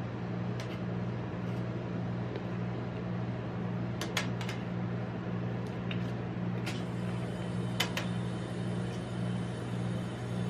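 Metal spatulas clicking and scraping against a frozen steel ice pan and a paper cup as ice cream rolls are lifted and pressed into the cup: scattered sharp ticks, a pair about four seconds in and a louder pair about eight seconds in. Under it runs a steady low hum from the ice pan machine.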